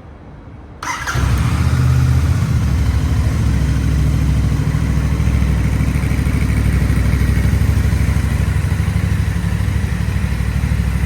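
Royal Enfield Bear 650's 648 cc parallel-twin engine started about a second in. It catches at slightly higher revs for a moment, then settles into a steady idle.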